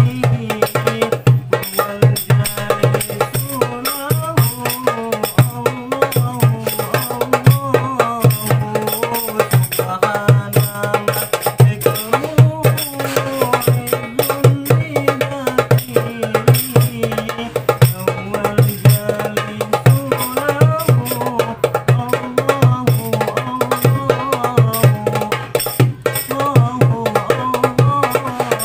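Cast-aluminium 8¾-inch darbuka played with the hands in a fast, dense hadroh rhythm, with a wavering sholawat melody running over it.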